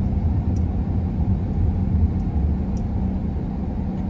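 A car's steady low rumble, heard from inside the cabin while it is being driven.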